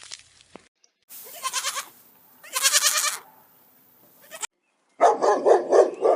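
Goat bleating: two wavering, trembling bleats, then after a short break a quick run of pulsed bleats.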